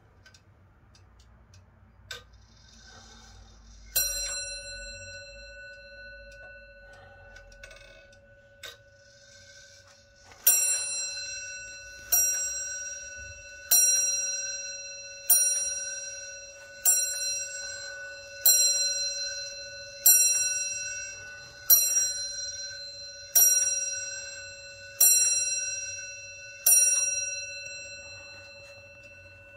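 Hermle Comtoise-style wall clock striking on its bell. Faint ticking and clicks come first, then a single strike at about four seconds, then eleven strikes about 1.6 seconds apart, each ringing on and fading before the next.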